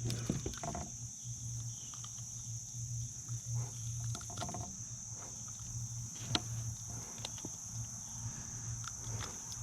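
Steady high-pitched chorus of insects, with scattered light clicks and taps on top.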